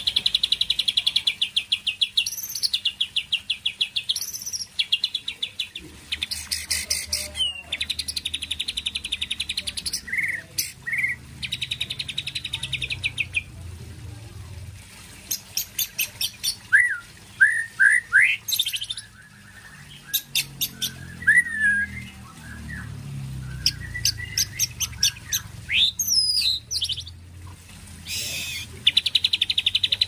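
White-rumped shama singing: runs of fast, evenly repeated rattling notes a second or two long, broken by short gliding whistles. The song is full of mimicked phrases, which the keeper likens to a kapas tembak's.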